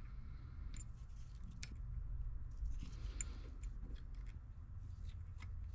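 Light, scattered metallic clicks and ticks of small steel vanes being picked up and slipped into the rotor slots of a Bosch VE injection pump's vane transfer pump, over a low steady hum.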